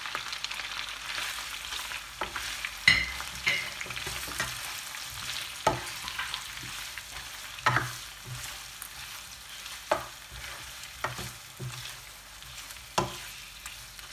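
Beef cubes and ginger-garlic paste sizzling in butter and oil in a nonstick frying pan, stirred with a plastic spoon that knocks against the pan about six times, every couple of seconds. The loudest knock comes about three seconds in.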